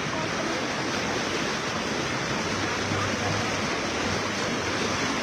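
Flash-flood water rushing fast down a flooded street: a steady, even rush of moving water.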